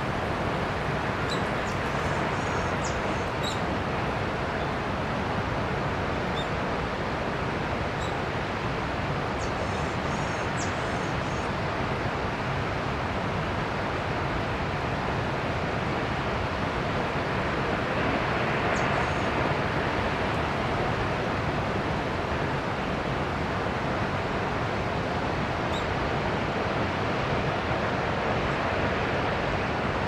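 Senpiro Falls waterfall's steady rush, an even hiss of falling water, with a few faint bird chirps scattered through it.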